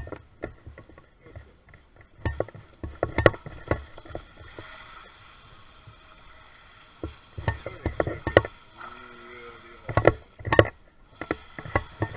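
Small electric RC jet boat running on the water, its motor and jet pump giving a steady high whine while it spins and drifts, broken by many short loud thumps and bursts of noise.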